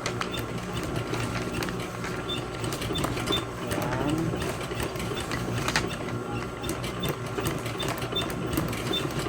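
Sewing machine running and stitching a practice seam, driven by the foot pedal, with a steady run and a rapid ticking of the needle.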